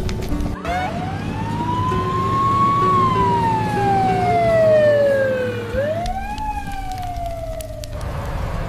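Wailing siren sound effect: one pitched tone slowly rises and falls, then rises and falls again in a shorter sweep about six seconds in, over background music.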